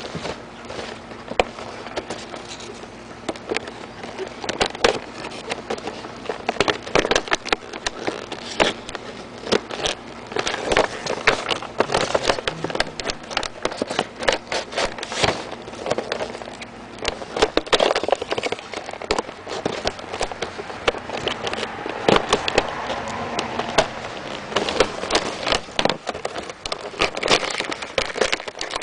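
Action-figure box being opened: cardboard and plastic packaging handled, rustling and crackling with many sharp irregular clicks.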